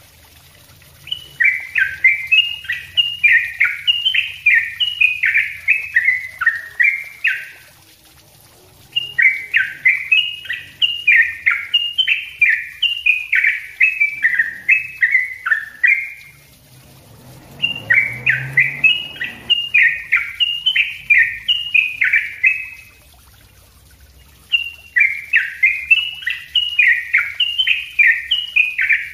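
Yellow-vented bulbul (trucukan) singing: four long runs of rapid, tightly strung chirping notes, each run about six seconds with short pauses between, the dense rolling 'ropel rapat' song that keepers prize.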